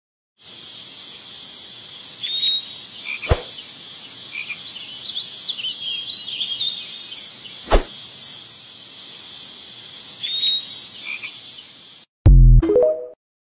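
A steady, high-pitched outdoor animal chorus with a few short rising chirps over it and two sharp clicks. It stops about twelve seconds in and is followed by a brief, loud, low sound.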